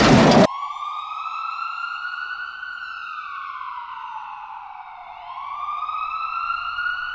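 A loud burst of noise cuts off about half a second in, then an ambulance siren wails in slow sweeps, rising, falling and rising again.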